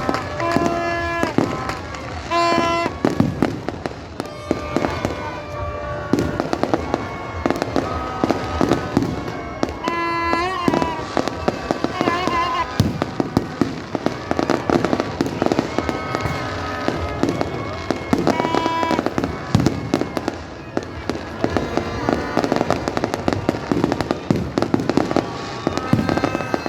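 Fireworks display: a dense, irregular run of bangs and crackles, with music and voices behind.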